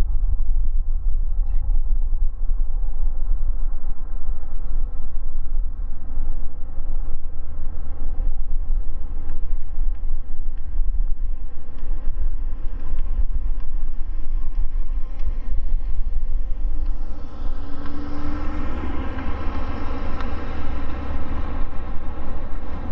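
Boeing 777F freighter's GE90-110B1 turbofans running at taxi power, a steady whine over a heavy low rumble. From about seventeen seconds in, the engine noise grows louder with a rising hiss.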